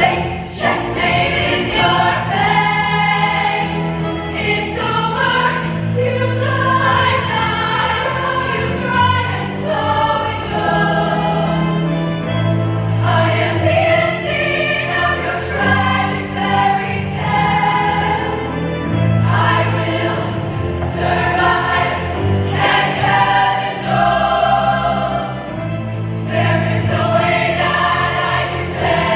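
High school women's show choir singing in harmony over instrumental accompaniment, with sustained low bass notes changing every couple of seconds.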